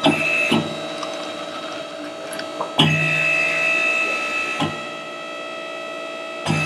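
Hose crimping machine cycling: sharp clunks as it engages and stops, with a motor hum that grows louder in between and runs longest for about two seconds in the middle.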